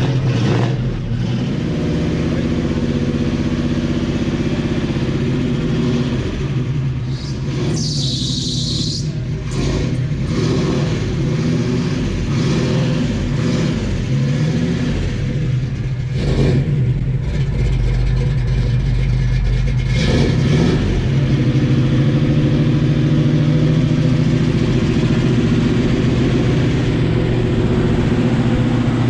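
1969 Ford Mustang's 428 Cobra Jet big-block V8 running with a steady, low exhaust note as the car pulls out and rolls slowly, with a few short blips of the throttle.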